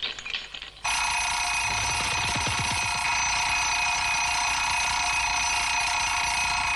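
A loud alarm starts ringing suddenly about a second in and rings on steadily without a break.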